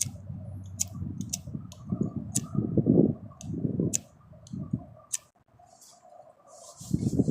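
A lighter clicked over and over, about ten sharp clicks, while gusts of wind rumble on the microphone; the wind keeps blowing the flame out. The rumble dies away for about two seconds near the end and then comes back.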